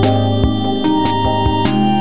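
Background music: held keyboard chords over a deep bass note with a steady beat, the chords changing about every second.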